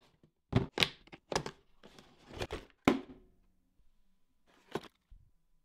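Plastic tool case being unlatched and its lid opened: a series of sharp plastic clicks and knocks through the first three seconds, then one more click near the end.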